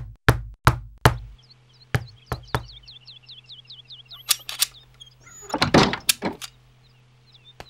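Knocking on a wooden panelled door in quick groups of raps. Then, with a louder clatter, the metal bolt at the top of the door is drawn back and the door is pulled open. Small birds chirp faintly behind.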